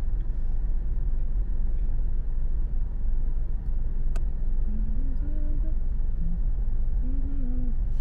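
Steady low rumble of a car's engine and drivetrain heard inside the cabin while it creeps along in slow traffic, with a single faint click about four seconds in.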